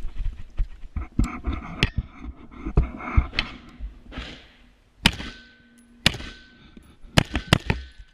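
Sharp rifle shots on a live-fire range, single reports spaced about a second apart, the loudest in the second half, each with a short ringing tail. Between them, the rattle of gear and scuffing footsteps.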